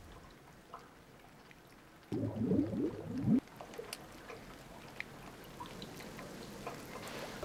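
Faint, scattered water drips. About two seconds in comes a short burst of low, gurgling sweeps, like liquid glugging, lasting just over a second.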